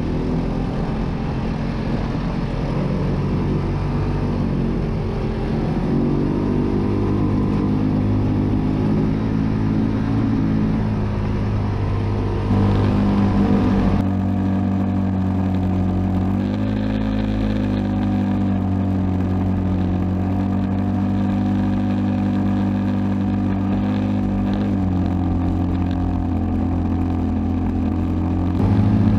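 Side-by-side UTV engine running under way, heard from on board, its pitch rising and falling with the throttle. The sound changes abruptly about halfway through.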